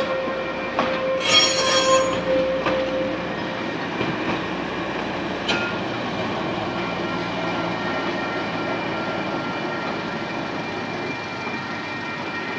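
Vintage train's carriages and wagons rolling slowly in reverse over a level crossing, wheels grinding on the rails, with a sharp wheel squeal about a second in. A steady high warning tone from the crossing signals sounds throughout.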